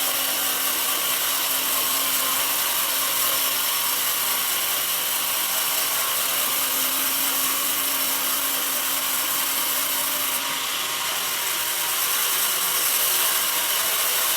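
Band sawmill blade cutting through a mahogany log: a steady, hissing saw noise that dips slightly about two-thirds of the way through, then picks up again.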